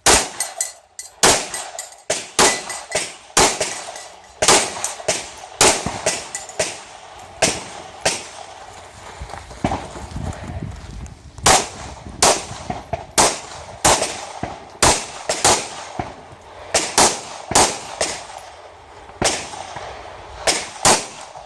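Pistol shots fired in quick strings, dozens of sharp reports about half a second to a second apart with brief pauses between groups, as in a practical pistol stage.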